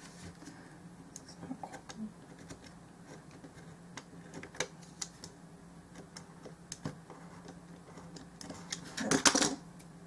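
A craft knife makes small, scattered clicks and scrapes as it trims a small piece of card on a cutting mat. There is a louder clatter about nine seconds in.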